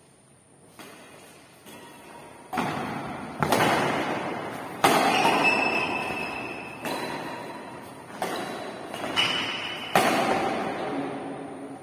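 Badminton rally: a racket striking the shuttlecock about nine times, roughly a second apart, each hit echoing in a large bare hall. The first two hits are soft, and the rest are much louder.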